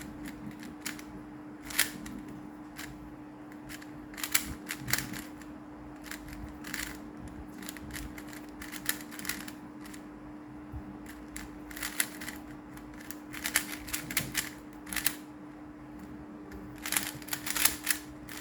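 Swiftblock 3x3 magnetic speed cube being turned by hand: its plastic layers click and clack in quick flurries of turns with short pauses between. A steady low hum runs underneath.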